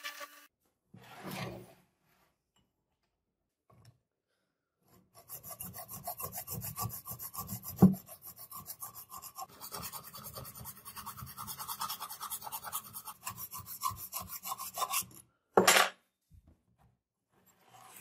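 Hand file rasping back and forth along the edge of a brass butterfly-knife handle clamped in a vise: a long run of quick, even strokes for about ten seconds, with one sharp knock partway through. A short loud burst of sound follows near the end.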